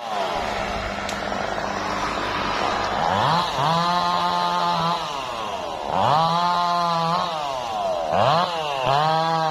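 Two-stroke chainsaw cutting a mahogany tree. It starts with the revs falling away, then is throttled up four times, each time rising sharply, holding at full revs for a second or so and dropping back.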